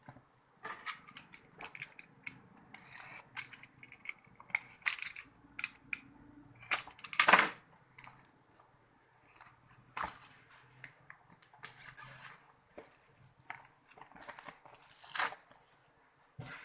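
The Smoant Pasito pod kit's packaging being opened by hand: irregular rustling, scraping, clicks and tearing noises. The loudest scrape comes about seven seconds in, with another strong one near the end.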